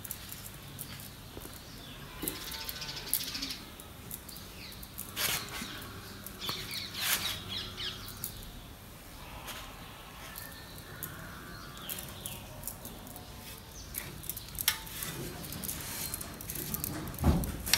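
A cloth rubbing and rustling over a parked motorcycle as it is wiped down dry, with scattered light clicks and knocks. Birds chirp now and then in the background.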